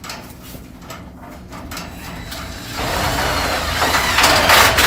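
Power drill driving a self-tapping screw through aluminium angle into a steel garage door: light clicks at first, then about three seconds in the drill starts and grinds loudly, getting louder toward the end as the screw bites into the metal.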